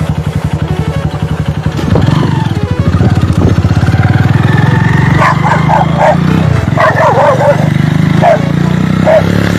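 A motor vehicle engine running with a steady low pulsing, with dogs barking repeatedly from about five seconds in.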